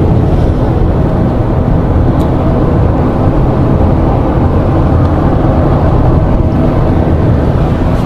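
Steady engine and road noise inside a car's cabin while driving, deep and unbroken.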